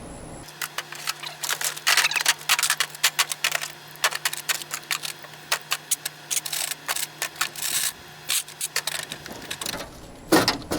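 Hand tools clattering and clinking as they are sorted into a toolbox: many quick clicks and knocks, thinning out near the end. A low steady hum runs underneath.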